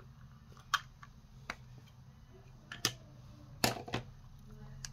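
Small plastic blush compacts being handled: several sharp clicks and taps at irregular intervals, over a faint steady low hum.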